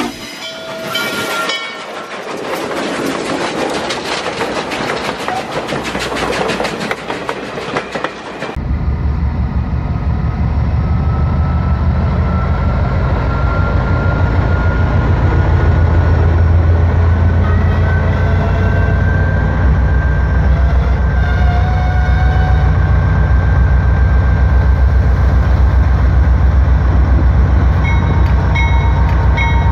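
A streamlined Norfolk & Western class J steam locomotive passes close by with a dense rush of steam and exhaust hiss. About eight seconds in this gives way abruptly to a Norfolk Southern AC44C6M diesel-electric locomotive rolling past, its engine a heavy, steady low rumble that builds and then holds.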